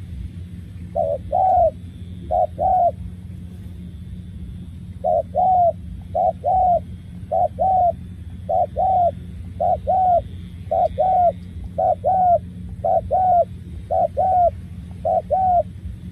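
Spotted dove cooing: a repeated two-note coo, given twice, then after a short pause about once a second in an even series. A steady low hum runs underneath.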